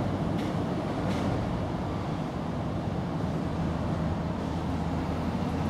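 Steady low background rumble with a faint hum, with two soft brief rustles about half a second and a second in.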